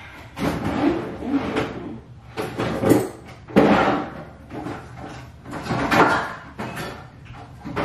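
Bathroom drawers and cabinet doors being opened and shut and their contents moved about while someone searches for a can of hair setting spray, in about five separate bursts of sliding and knocking.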